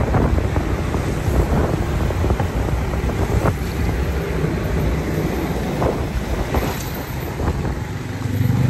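Wind buffeting the microphone of a motorcycle under way, over the motorcycle's engine and road noise.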